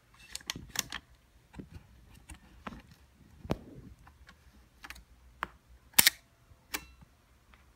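Ensign Selfix 820 folding camera being worked by hand: a string of small, sharp mechanical clicks from its controls and leaf shutter. The loudest click, about six seconds in, is the shutter firing at a slow speed of about 1/10 s.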